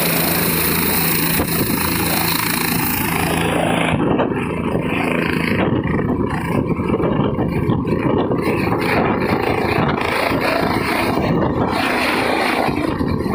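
Single-engine turbine helicopter running on the helipad with a steady turbine whine, then lifting off; about four seconds in, the whine gives way to a rough, rushing rotor noise as it rises and passes close.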